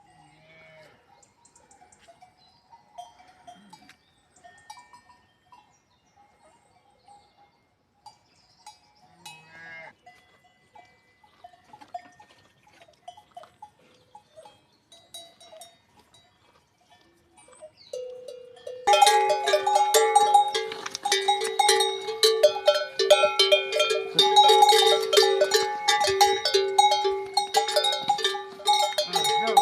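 Cattle cowbells: a few faint clanks and a couple of faint animal calls at first, then about two-thirds of the way in many bells start clanging loudly together, a dense, continuous ringing.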